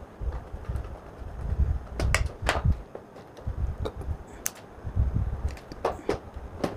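Handling noise from wiring work: hands moving wire and small hand tools such as wire cutters about a tabletop, giving low dull bumps and a scatter of sharp clicks, a cluster about two seconds in and more near the end.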